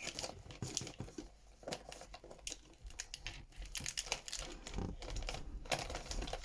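Plastic pens clicking and rattling against one another as they are pulled out of a pencil case by hand, with rustling of the case.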